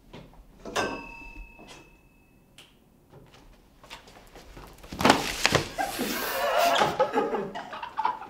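A single sharp metallic ting that rings on for about two seconds. About five seconds in comes a loud crash and clatter lasting about two seconds, as a person falls onto a wooden floor among metal-legged chairs.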